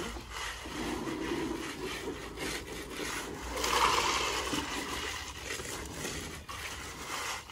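A hand trowel scraping and smoothing wet concrete, with a bucket of wet concrete tipped out onto the slab about four seconds in, the loudest sound.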